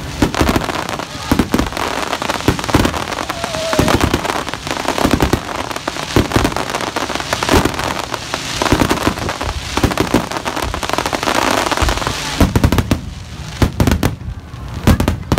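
Aerial firework shells bursting in a rapid barrage, the bangs overlapping into a continuous din, then thinning to separate bangs in the last few seconds.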